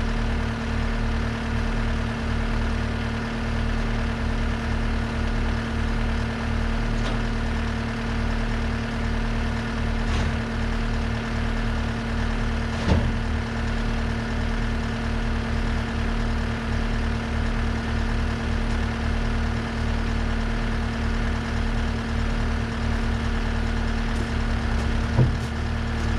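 Tow truck's diesel engine idling steadily, with two sharp knocks, one about halfway through and a louder one near the end.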